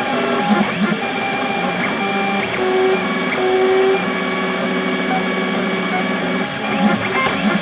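XYZ da Vinci Mini W+ 3D printer printing: its stepper motors whine in short steady tones that jump to a new pitch with each move of the print head, with a few faint clicks.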